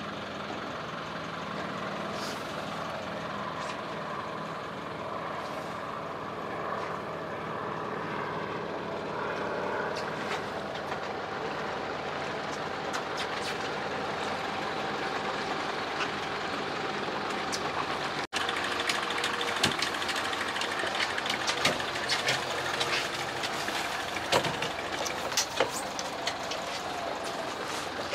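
A fishing boat's motor running steadily under way, with water and wind noise along the hull. After a brief break about two-thirds in, sharp knocks and taps come over the engine's steady sound.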